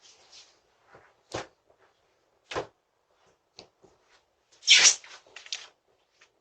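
A few scattered short knocks and clicks, two of them clear about one and a half and two and a half seconds in, and a louder noisy scrape of about half a second near five seconds in, followed by small rustles.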